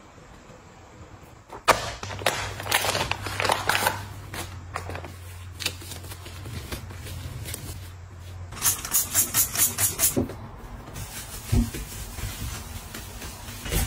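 Objects being handled and set down, with clicks and taps, a low hum through the first half, and a quick run of about eight sharp clicks a little past the middle.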